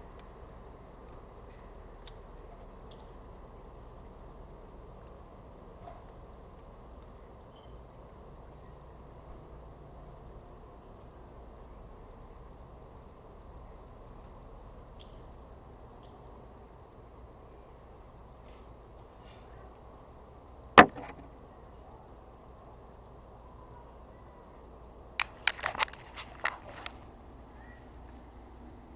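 Crickets trilling steadily at a high pitch, with one sharp loud click about two-thirds through and a quick run of clicks near the end as a lighter is struck until its flame catches.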